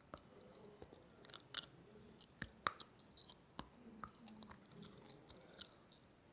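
Faint, close-miked crackles and clicks at irregular intervals, a few sharper than the rest, over a low hiss.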